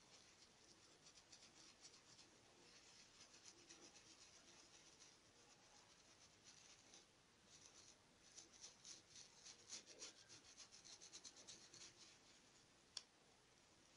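Faint, rapid scratchy strokes of a stencil brush rubbing sepia fabric paint through a plastic stencil onto a cotton face towel. The strokes come thicker and faster in the second half, and there is one sharp tick near the end.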